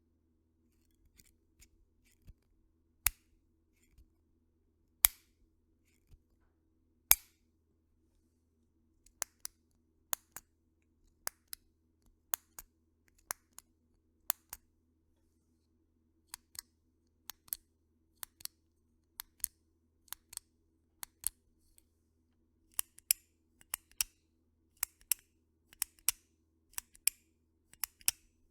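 Push buttons of retractable click pens being pressed and released, making sharp clicks. First come three loud single clicks about two seconds apart. After that there are many quieter clicks, mostly in close pairs about a second apart, coming thicker near the end.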